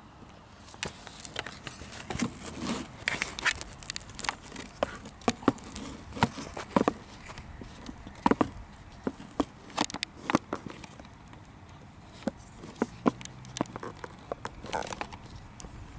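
Handling noise from a camera being moved around binoculars: irregular sharp clicks, taps and rubs, some louder than others, over a faint outdoor hiss.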